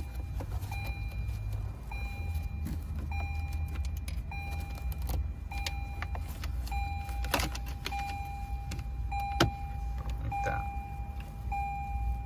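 Lexus RX's warning chime repeating a single tone about once every 1.2 seconds, over a steady low hum. A few sharp plastic clicks and knocks come in the second half as the dash screen is fitted back in place.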